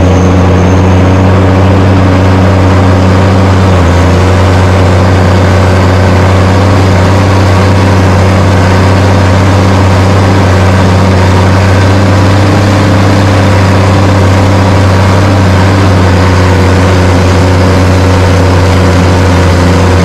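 Case IH Puma 155 tractor's diesel engine running steadily under heavy load as it pulls Cambridge rolls across ploughed ground.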